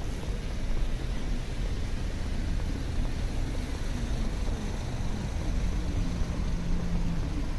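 Steady low rumble of city street traffic on a busy avenue, with a faint steady hum from a passing vehicle for a second or so near the end.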